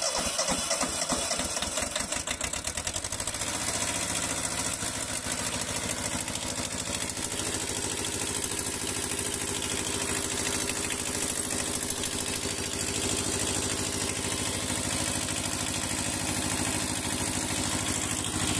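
Kubota compact tractor's diesel engine, freshly started after a fuel filter housing repair. It runs unevenly for the first three or four seconds, then settles into a steady idle.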